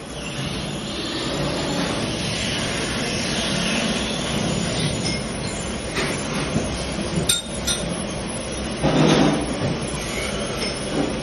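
Special-purpose drilling and tapping machine running, a steady mechanical noise with sharp metallic clinks and knocks, and a louder clatter about nine seconds in.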